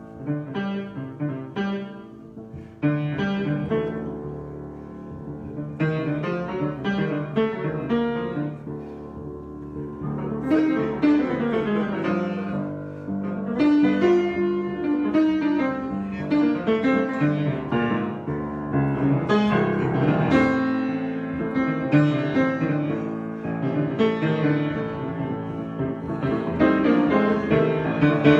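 Piano being played in an improvised passage of notes and chords; the playing grows busier and louder about ten seconds in.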